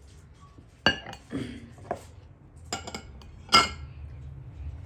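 Glass bowl clinking and knocking against ceramic and glass dishes as it is moved and set down on a plate. There are a few sharp clinks, and the loudest, with a short ring, comes about three and a half seconds in.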